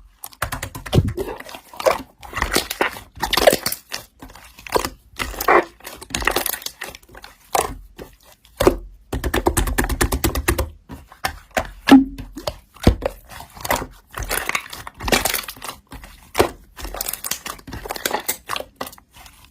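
Slime being squeezed and poked by hand, making irregular wet clicks, pops and crackles.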